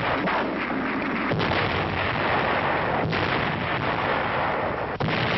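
Battle sounds: continuous gunfire with several sharp shots or blasts standing out, roughly every one and a half to two seconds.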